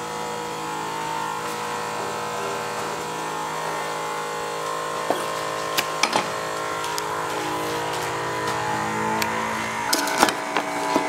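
A steady mechanical hum with several held tones, its pitch shifting slightly near the end, with a few sharp knocks of a knife on a plastic cutting board.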